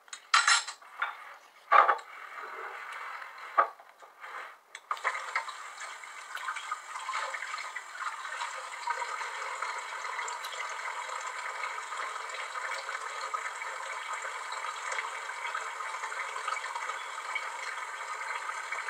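A few short knocks and handling sounds, then, about five seconds in, a tap turned on and water running steadily.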